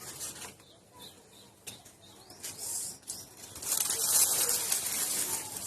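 Leaves and foliage rustling, with a few light clicks early on, growing to a louder, steady rustling hiss a little over halfway through.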